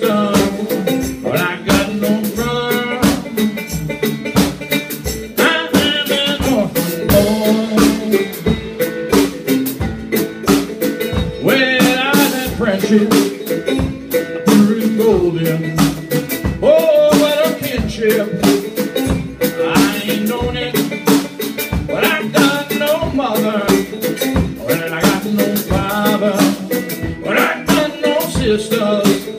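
Live folk-blues band music: a homemade cigar box guitar played with a drum kit keeping a steady beat, with bending, sliding melody notes.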